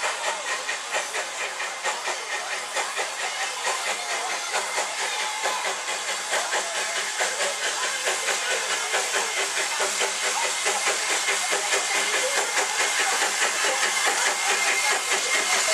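Small narrow-gauge steam locomotive hauling a train of passenger coaches past at low speed: a steady hiss of steam with rapid, even chuffs, growing gradually louder as it approaches.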